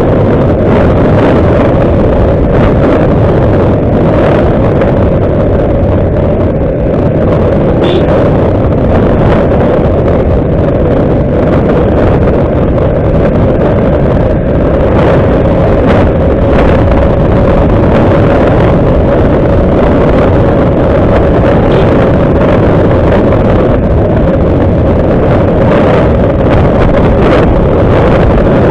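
Heavy wind buffeting the microphone of a motorbike riding along a road at speed, with the engine's steady drone underneath.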